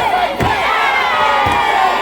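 Large crowd cheering and screaming, many high voices overlapping, with a low thump underneath about once a second.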